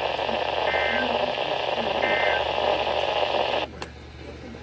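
Weather-radio receiver hissing with static from a weak signal, with two faint short beeps about one and a half seconds apart. A little over three and a half seconds in, the static drops abruptly to a much quieter hiss.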